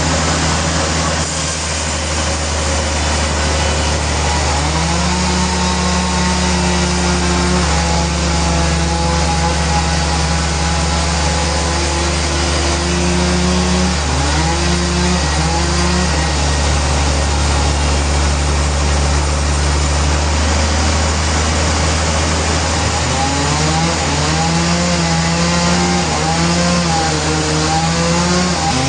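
Sawmill machinery running steadily with a constant low hum, and a pitched tone over it that steps up and down several times.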